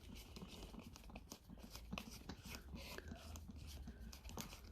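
Faint, irregular small clicks and rubbing as a drill chuck is twisted by hand to tighten it onto the shaft of a blade-sharpening attachment.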